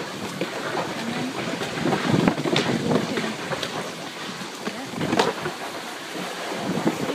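Funchal wicker toboggan sliding downhill on its wooden runners, which scrape and rush steadily over the road surface, with a few sharp knocks as it bumps along.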